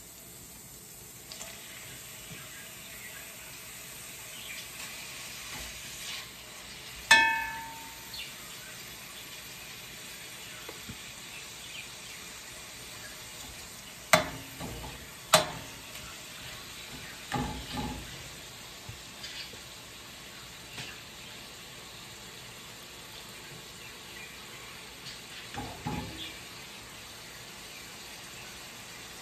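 Thin slices of raw beef frying in oil in a stainless steel pan, a steady sizzle that picks up about a second and a half in. A metal spoon clinks against the pan several times, the loudest a ringing clank about seven seconds in.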